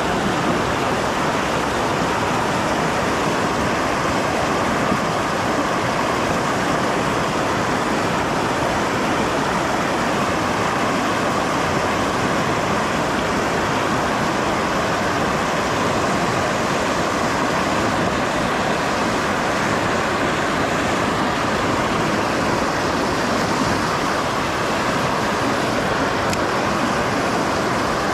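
Water rushing steadily over a low concrete weir and churning into white water below: a loud, even noise with no breaks.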